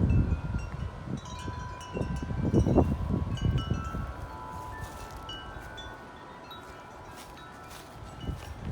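Several wind chimes ringing together in gusty wind, with many overlapping tones. Wind rumbles on the microphone, strongest at the start and again about two to three seconds in, then dies down so that mostly the chimes are left.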